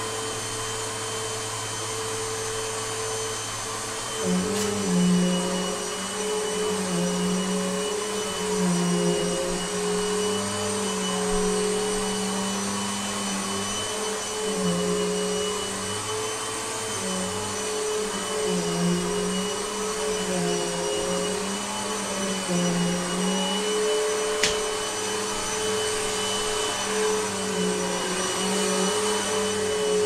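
Vacuum cleaner running steadily. About four seconds in, its hum deepens and begins to waver up and down as it keeps running. There is a single sharp click late on.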